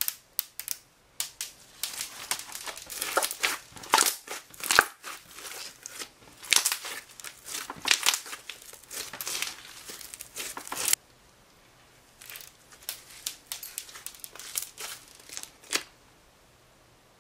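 Thick slime with small foam beads mixed in being squeezed and kneaded by hand: crackly, sticky squelches and small popping air pockets in an irregular run. The squishing stops about eleven seconds in, starts again a second later, and ends around sixteen seconds.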